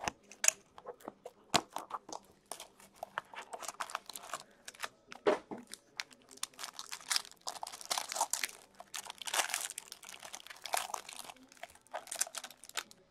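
Hands handling and tearing open a foil trading-card pack and its wrapping: crinkling and tearing, with many small clicks and taps. The crinkling is densest in the middle of the stretch.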